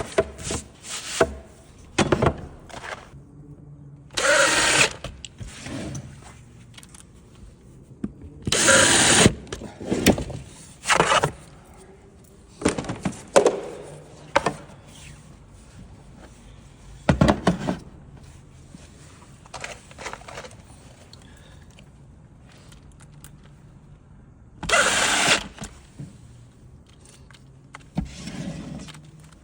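Power drill driving screws in three short bursts of about a second each, with scattered clicks and knocks from handling wood and metal drawer slides in between.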